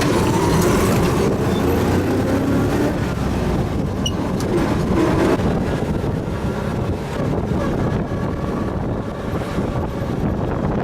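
Steady rumble and road noise of a moving vehicle.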